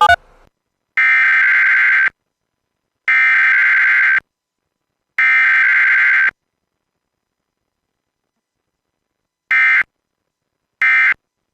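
Emergency Alert System SAME digital data tones for a weekly test. Three bursts of about a second each of rapid two-tone warbling come about a second apart, forming the header. After a pause of about three seconds, two short end-of-message bursts follow near the end.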